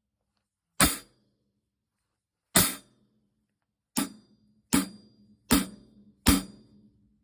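Istanbul Agop Xist Brilliant 14-inch hi-hat struck closed: six single strokes, each dying away quickly, the first three well apart and the last three coming faster, about one every three quarters of a second.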